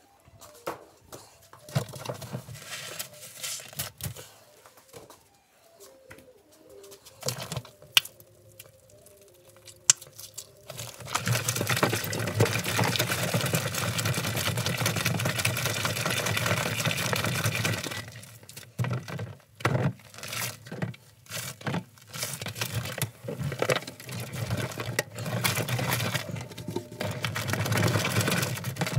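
Washing machine churning an overloaded, foamy load of dog bedding and blankets: uneven wet sloshing and squelching through the suds, with a steadier rush of water lasting several seconds in the middle.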